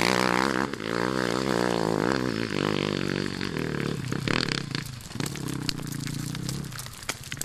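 Off-road motorcycle engine revving hard on a dirt hill climb, its note wavering up and down with the throttle, then running fainter and steadier in the second half as the bike pulls away.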